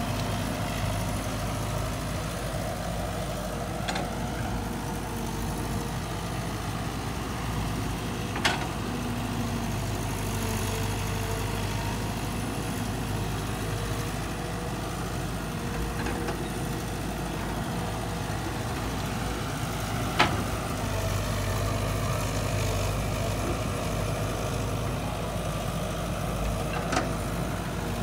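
Caterpillar 312 hydraulic excavator's diesel engine running steadily while it digs and swings a bucket of soil. A few sharp knocks are spaced through it.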